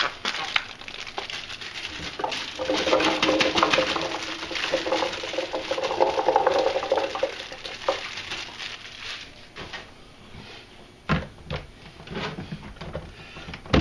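Fresh cranberries poured into a plastic Vitamix blender jar, hitting the jar and each other in a long rattle of quick clicks, with a steady hum under them for a few seconds in the middle. Near the end a few sharp plastic knocks as the lid is fitted onto the jar.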